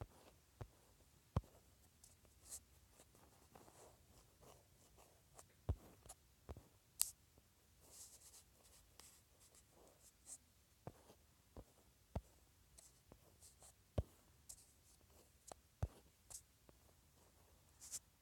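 Pen or stylus drawing: faint scratching strokes broken by sharp taps every second or two.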